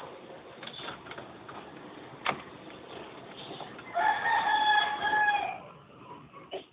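A rooster crowing once, about four seconds in, a held call of about a second and a half that drops at the end. A sharp knock comes about two seconds in.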